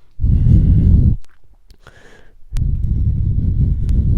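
Two loud, low rumbling blasts of noise on the microphone, the first about a second long and the second, starting about halfway through, lasting nearly two seconds.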